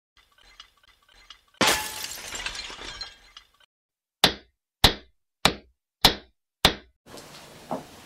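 Sound effects: a loud crash like glass shattering about one and a half seconds in, dying away over about two seconds, then five sharp knocks evenly spaced a little over half a second apart.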